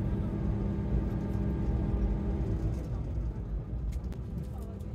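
Running noise of a diesel railcar heard from inside the carriage: a steady low rumble with a droning hum that fades out about two and a half seconds in, and a few sharp clicks near the end.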